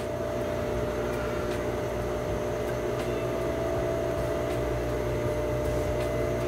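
Electric sewing machine running steadily, stitching a seam, with a constant motor hum.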